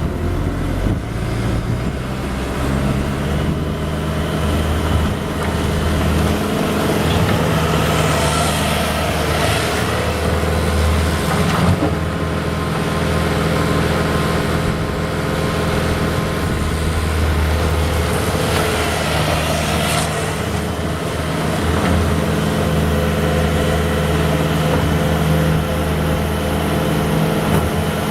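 Bobcat S750 skid steer loader's diesel engine running steadily, its engine speed stepping up and down a few times.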